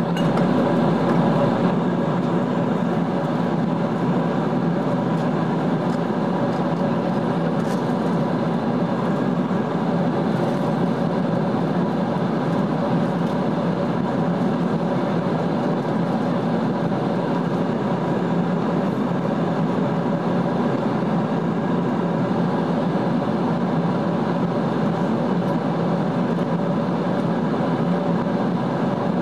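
Steady cabin noise of a Boeing 777-200 in cruise: the even rush of engines and airflow heard through the fuselage from a window seat over the wing, with a few faint steady hums in it.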